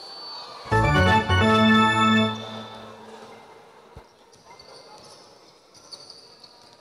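A loud electronic organ-like tone sounds twice in quick succession, starting about a second in and fading out within two seconds. Faint knocks and hall noise follow.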